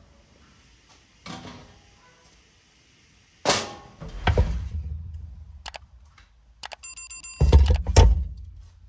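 Firewood being laid in a wood-fired oven: a sharp knock, paper and kindling rustling, a brief rapid clicking, then loud heavy thuds as a split log is set down on the stone oven floor.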